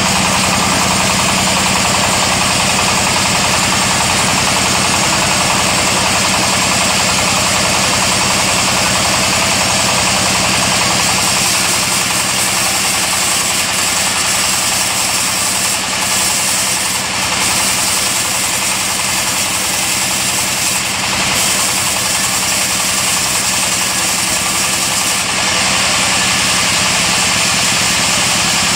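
Small stationary diesel engine running steadily, driving a newly bought wood band saw during a test cut as a wooden plank is fed through the blade.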